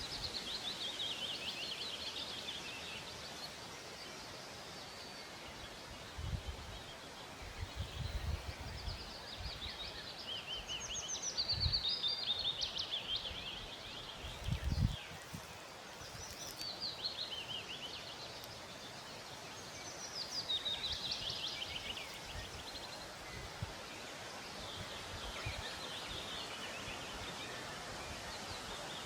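A songbird singing in a forest, repeating short phrases of rapid high notes every few seconds over a steady background hiss. Low rumbles and thumps come and go in the middle, loudest about 15 seconds in.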